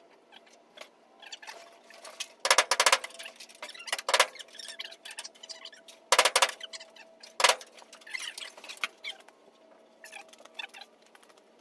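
Four short, loud rasping bursts, each well under a second long and spaced one to two seconds apart, over a faint steady hum.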